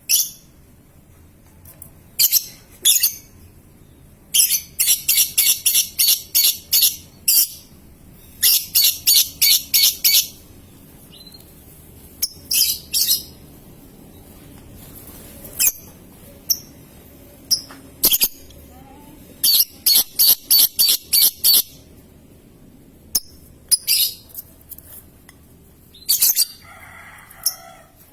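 Lovebird singing ngekek, its long chattering trill: three runs of rapid, shrill repeated notes, each lasting about two to three seconds, with single sharp chirps between them.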